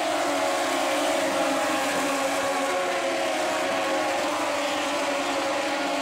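A pack of Moto2 race bikes, fitted with Triumph 765 cc three-cylinder engines, passing at speed. Several engine notes overlap, falling in pitch as bikes go by, in a steady wall of sound.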